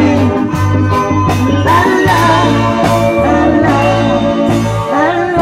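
Live band music played through loudspeakers: electric guitar and drums over a steady bass line, with a voice singing.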